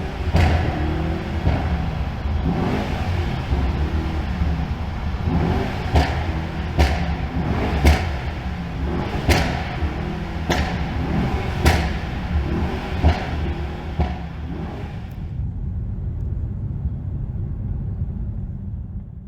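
Mercedes-AMG E63 S Edition One's twin-turbo V8 revving, its exhaust popping and crackling with a sharp crack about every second. After about fifteen seconds the crackles stop and only a low engine rumble remains.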